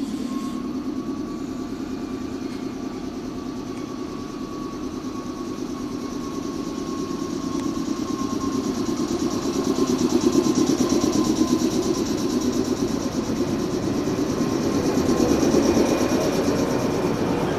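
Yellow three-car electric train rolling in alongside the platform as it arrives, its wheels rumbling, with a steady high whine that drifts slowly lower as it slows.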